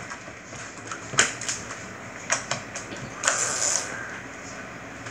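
Slime being pressed and kneaded by hand on a tabletop: a few sharp, sticky clicks and snaps at irregular intervals, with a brief hiss about three seconds in.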